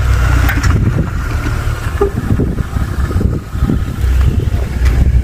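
Heavy bass from a car's aftermarket sound system playing music, heard from outside the closed car, with wind on the microphone.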